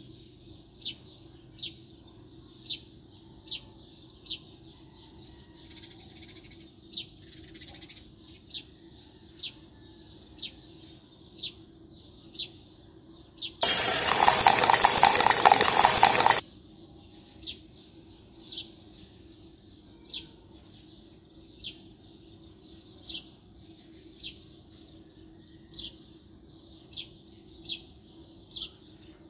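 A small bird chirping, one short high note roughly once a second, over a faint steady hum. About halfway through, a loud, harsh, rattling mechanical noise cuts in for about three seconds and stops abruptly.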